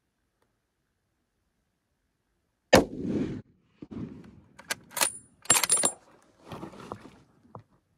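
A single rifle shot about three seconds in, the loudest sound, trailed by a short rumble. Then the bolt is worked in a string of sharp metallic clicks and clatter to chamber another round.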